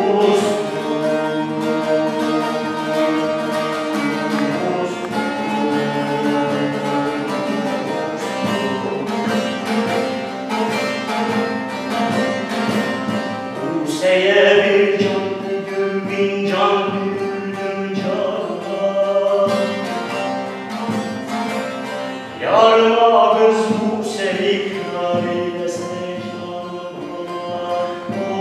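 Background music of plucked strings, with a voice singing that comes in louder about fourteen seconds in and again past twenty-two seconds.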